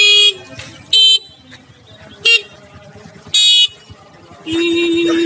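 Motorcycle horns beeping in turn: four short beeps about a second apart, then near the end a longer, lower, steady horn note. That last horn sounds like one running on a flat battery.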